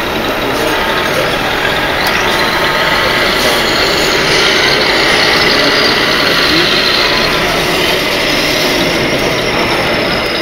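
Diesel truck engine sound from a 1:16 radio-controlled Scania model's sound module, running steadily over a constant background din.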